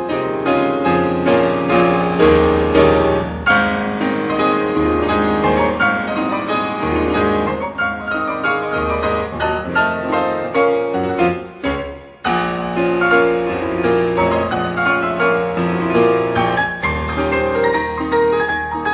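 Background piano music, classical in style, with a sustained low bass beneath the melody; it falls away briefly about twelve seconds in and then resumes.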